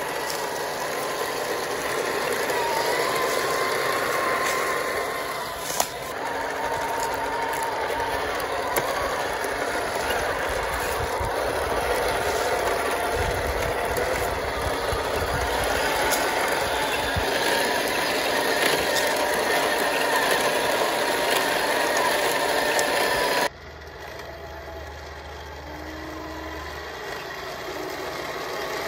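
Heng Long 1:16 RC Challenger 2 tank driving: a steady mechanical run of its gear motors and plastic tracks, mixed with the simulated diesel engine sound of its built-in sound unit. About three-quarters of the way through the sound drops suddenly and turns quieter and more distant.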